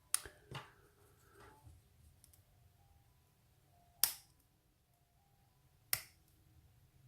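Sharp, small clicks and taps of metal lock parts and shims being handled while a pin-tumbler cylinder is shimmed out for gutting, four in all: two in the first second, one about four seconds in and one near six seconds.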